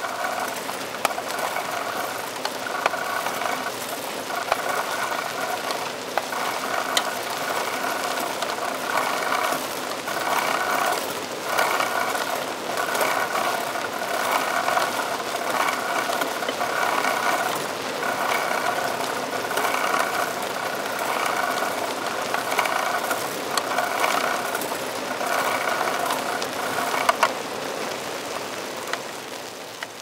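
A rattling old bicycle being ridden, heard from on the bike: loose parts rattle with sharp clicks here and there while the chainguard scrapes, the scraping coming and going in short stretches. It fades out near the end.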